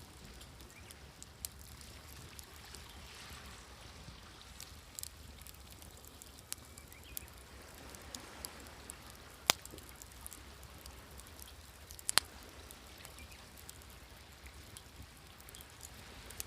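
Wood fire crackling with scattered sharp pops, the loudest about halfway through and a quick double pop a few seconds later, over soft, swelling sea waves.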